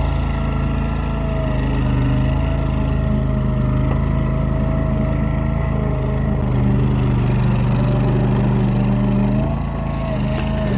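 Struck Magnatrac Hydro 5000 crawler dozer's engine running steadily, with a constant whine over the engine note; the note eases slightly about nine and a half seconds in.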